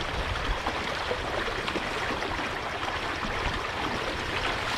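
Heavy rain falling: a steady hiss with scattered small drop hits.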